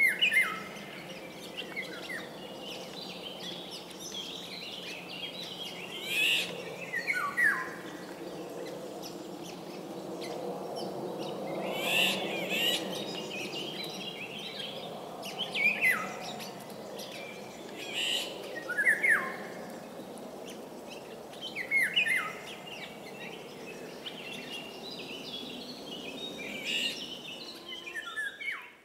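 A songbird singing short, varied phrases of quick whistled sweeps, repeated every few seconds, over a steady low drone.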